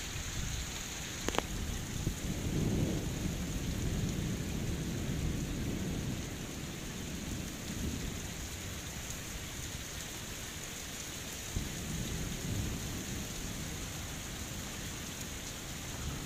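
Heavy rain pouring steadily, with a low rumble of thunder that swells about two seconds in and fades over the next few seconds. A single brief click just after a second in.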